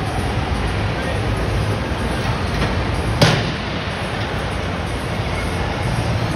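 Steady background din of a large indoor hall, with a single sharp clack about three seconds in.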